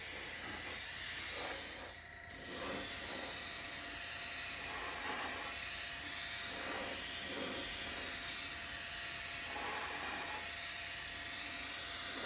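Airbrush spraying paint: a steady hiss of air and paint, cutting out briefly about two seconds in and then resuming.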